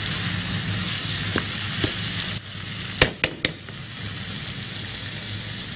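Minced meat and onions frying in oil in a nonstick wok, a steady sizzle as a spatula stirs them. The sizzle eases a little partway through, and the spatula clacks against the pan three times in quick succession.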